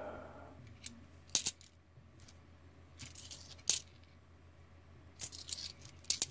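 Australian 20-cent coins clinking as they are handled and set down one at a time: a handful of sharp, short metallic clicks, spaced roughly a second apart.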